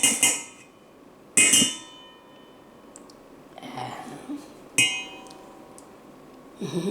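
A metal spoon knocking against a metal pan, ringing briefly after each knock; two single knocks about three seconds apart.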